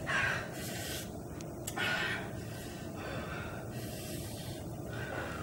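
A person's breathing: three short breathy huffs about two seconds apart, over a steady low hiss of room noise.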